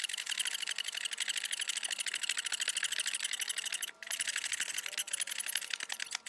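Air pump inflating the floor chamber of a Sea Eagle SE-370 inflatable kayak, pulsing rapidly and evenly at about ten beats a second with a hissy rush of air. It cuts out briefly about four seconds in, then runs on and stops near the end.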